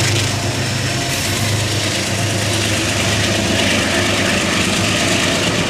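Metro-North Genesis diesel-electric locomotive's diesel engine running with a steady, low hum, close by as the locomotive moves along the platform track.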